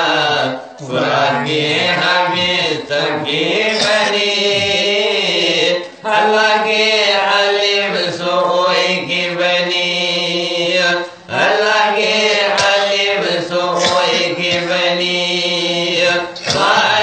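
Men chanting a Manipuri marifat, a Sufi devotional song, with voices and no instruments. They hold long sustained phrases and break briefly for breath about every five seconds.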